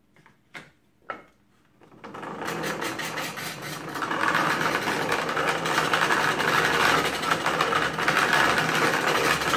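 Two light clicks as a steel blade is set on a magnetic tool holder, then a hand-cranked grinder with a five-gear wooden gear train starts up about two seconds in: the wooden gears whir and the grinding wheel runs against the blade. The sound builds for a couple of seconds and then runs steadily.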